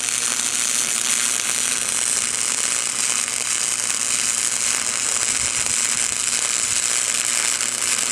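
Electric arc welder welding a bolt onto a steel exhaust tip: a steady, dense crackling hiss from the arc, held without a break.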